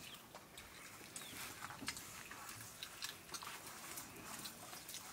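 Faint sounds of people eating by hand from steel plates: soft chewing, with small scattered clicks and scrapes of fingers and rice against the metal.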